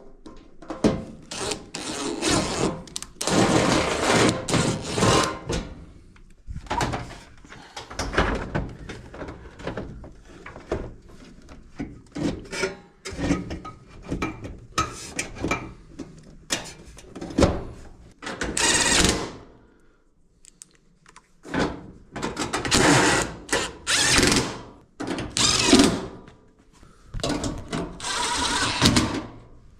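A power drill-driver running screws in short runs of a second or two, with knocks and clicks of parts being handled between runs, as a washer door is taken apart.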